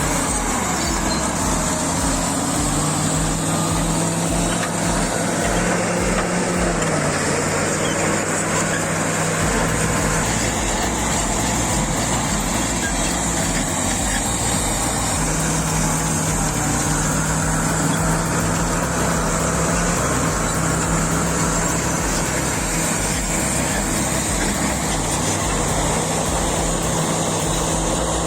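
Caterpillar D7G crawler bulldozer's diesel engine running under load, its pitch stepping up and down several times as it works.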